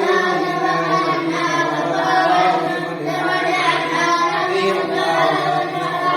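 Several voices chanting a supplication together in a continuous, melodic unison.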